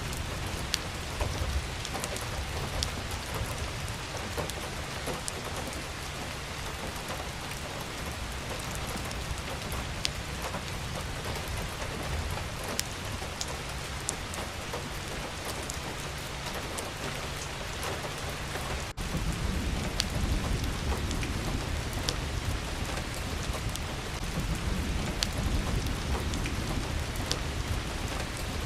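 Steady rain falling on a surface, with individual drops ticking through the hiss and a low rumble underneath. About two-thirds of the way through the sound breaks off for an instant, and the low rumble comes back louder.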